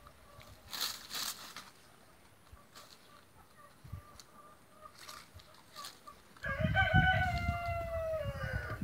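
A rooster crows once: one long call beginning about six and a half seconds in and falling away at the end, preceded by a few faint scuffs.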